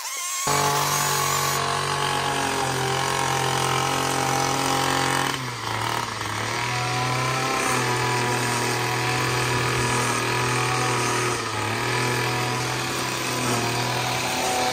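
Petrol engine of a Honda Izy lawn mower running at a steady speed. The sound changes abruptly about half a second in and again around five and a half seconds in.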